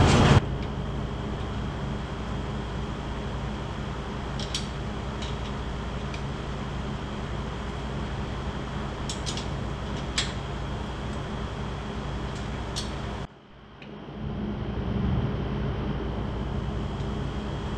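Steady mechanical hum in a workshop, with a few light metallic clicks from a bearing-puller tool being handled on a motorcycle engine case.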